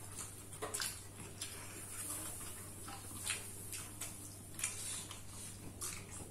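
Eating sounds at a meal: a scatter of faint, irregular clicks and light taps from dishes and food being handled, about one every half-second to second, over a steady low hum.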